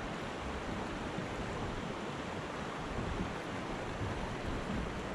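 Fast river water rushing through a shallow riffle of rapids, a steady even rush.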